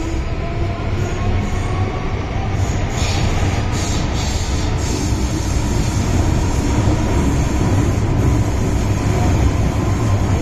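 MTR Island Line M-Train, a first-generation Metro-Cammell electric multiple unit about 45 years old, running along the line with a steady deep rumble of wheels on rail. Faint wheel squeal runs through it, with a few light clicks between about three and five seconds in.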